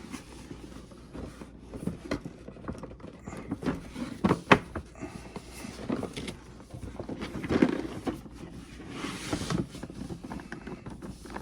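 Cardboard and plastic figure packaging being handled and opened: rustling and scraping with scattered clicks, one sharp click about four and a half seconds in.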